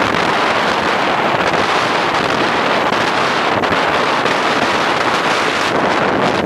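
Wind rushing over the microphone of a handlebar-mounted camera on a moving bicycle: a loud, steady rush with no breaks.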